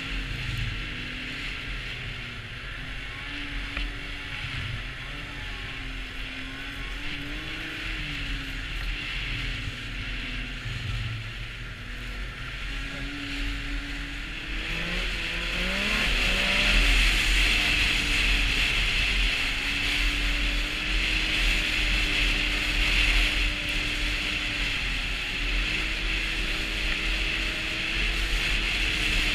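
Arctic Cat snowmobile's four-stroke three-cylinder engine running under way, its pitch rising and falling with the throttle. About halfway through it revs up and stays louder, with more hiss of track and wind.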